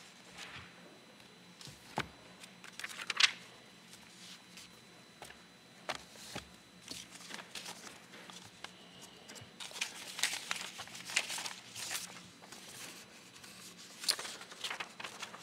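Paper rustling and pages turning as people handle service leaflets, with scattered soft knocks. The rustling is busiest about two-thirds of the way in and again near the end.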